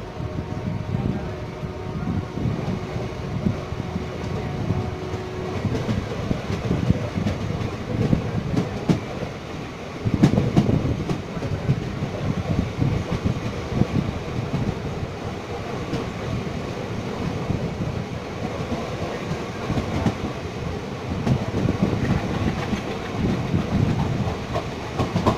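Freight train of flat wagons rolling past, wheels rumbling and clacking over the rail joints.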